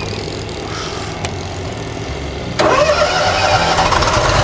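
Zero-turn ride-on lawn mower engine running at a low idle, then revving up about two and a half seconds in and holding at the higher speed.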